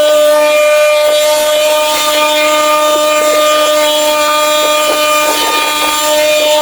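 A small motor running steadily at one constant speed, with a high, even hum.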